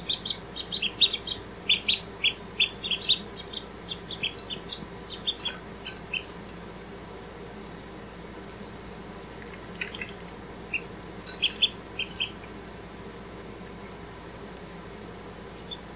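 Ducklings peeping: short, high peeps come in a quick busy run for the first six seconds or so, then only now and then, with long gaps between.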